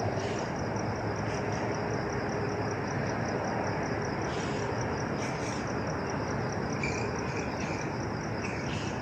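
Crickets chirping steadily in a high, pulsing chorus over a steady background hiss.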